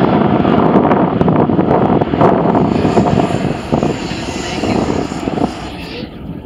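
Boeing 737 jet airliner's engines running with a loud, steady rush as it rolls down the runway, with gusty wind buffeting the microphone. The sound eases off somewhat near the end.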